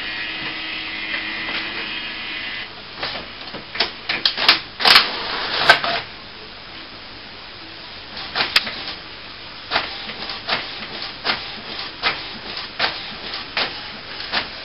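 HP Photosmart B109a/B209a all-in-one inkjet printer making a colour copy. A steady motor whine runs for the first couple of seconds, followed by a run of clicks and clunks as it pulls in a sheet of paper. From about halfway the print head is moving across the page, with a click about every three quarters of a second.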